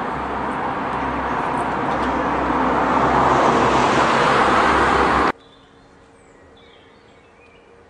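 Road traffic passing close by, a vehicle's noise swelling louder over the first few seconds and then cut off suddenly about five seconds in, leaving a much quieter outdoor background with a few faint chirps.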